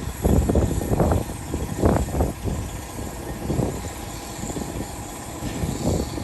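Heavy equipment clanking and banging over a steady low rumble, with irregular loud knocks, the strongest near the start and about two seconds in.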